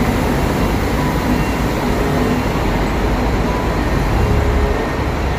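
Double-decker coach's diesel engine running as the coach drives past, a steady low rumble with road noise.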